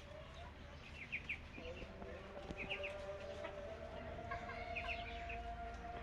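Birds chirping, several short bursts of three or four quick notes, over a faint steady tone.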